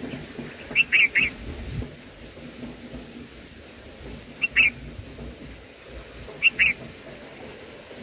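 Bulbul chirping in three short clusters of sharp, high notes: three notes about a second in, then two, then two more near the end. A steady rushing noise runs underneath.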